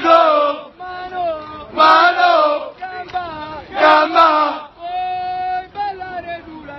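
A group of soldiers singing a rowdy military song together in unison. Loud sung phrases come about every two seconds, with a longer held line in the last couple of seconds.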